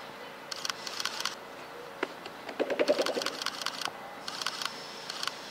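Bursts of rapid camera shutter clicks, like continuous shooting, in three runs about a second apart. A quick run of hollow knocks, the loudest part, comes about three seconds in.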